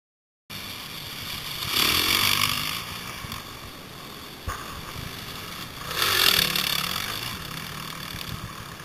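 Trail bike engines revving as riders climb a dirt track. The sound swells loudly twice, about two seconds in and again about six seconds in, and stays at a lower running drone in between.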